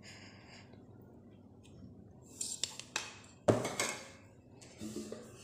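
Cooked rice being served onto a stainless steel plate: soft scrapes and clinks from the serving spoon, with one sharp metallic clink about three and a half seconds in.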